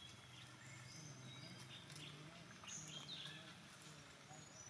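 Faint bird chirps and short high whistles over quiet forest ambience, with a faint low hum underneath.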